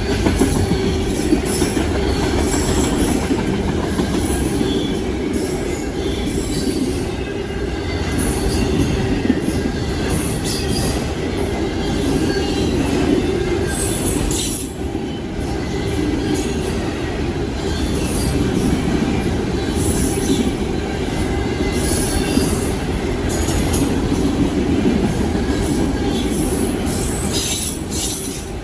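Long CSX freight train of auto rack cars rolling past at speed: a steady rumble of wheels on rail, with intermittent high-pitched wheel squeal.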